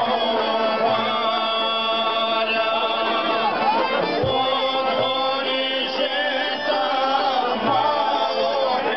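A group of men singing a traditional folk song together, with a plucked lute accompanying.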